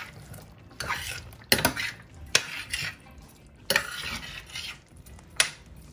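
Metal spoon stirring potato chunks into a stainless steel pan of curry, scraping and knocking against the pan's sides with several sharp clanks.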